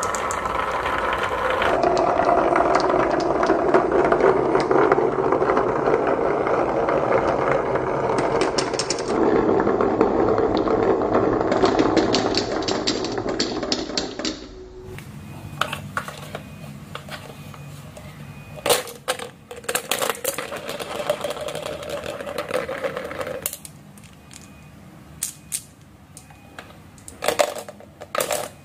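Many small balls rolling and clattering together down a carved wooden serpentine marble-run track, a dense continuous rattle that stops abruptly about halfway through. After that, balls roll more quietly along a wavy wooden track with scattered sharp clicks, and there are a few louder clicks and knocks near the end.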